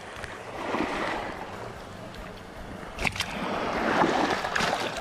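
Shallow waves washing up over wet sand at the shoreline, in two surges of wash, with a sharp click about three seconds in.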